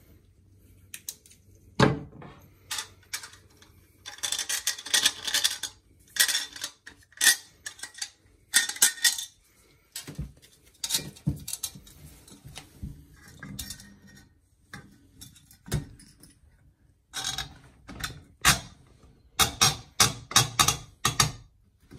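Metal shower faucet trim parts being handled and fitted by hand: irregular clinks, rattles and scrapes, with one sharp knock about two seconds in.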